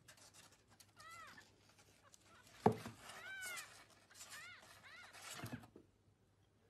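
Very young kitten mewing: four short, high cries that rise and fall in pitch, with a single thump, the loudest sound, a little before the second cry.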